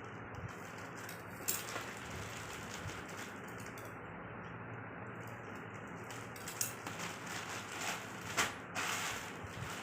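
Packaging being handled during an unboxing: a few short rubbing, scraping sounds, about a second and a half in and again after six seconds, over a faint steady hum.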